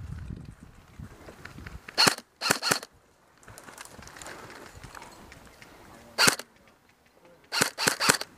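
Airsoft gun firing close by in single semi-automatic shots, each a sharp crack: one, then a quick pair about two seconds in, another past the middle, and three in quick succession near the end. Low rustling of movement in between.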